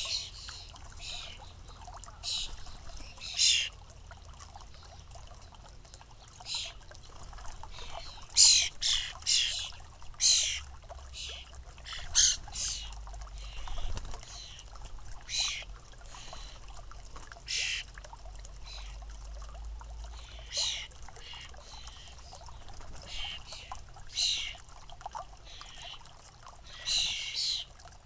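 European starling fledglings giving short, harsh begging calls, repeated irregularly every second or two, with busier runs of calls partway through and near the end.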